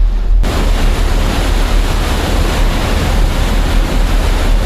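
River boat ride: a deep, steady engine rumble under a loud rush of wind and water noise that comes in about half a second in.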